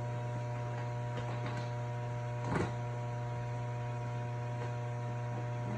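Steady low hum, with a few faint clicks and one louder knock about two and a half seconds in, as a pressure gauge fitting is handled and screwed onto a port on a hyperbaric chamber.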